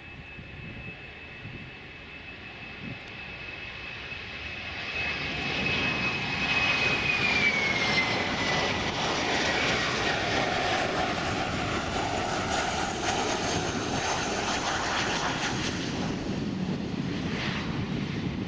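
Boeing 737-400's CFM56-3 jet engines on landing approach: a high whine grows louder, drops in pitch about seven seconds in as the jet passes, then gives way to loud, steady engine noise.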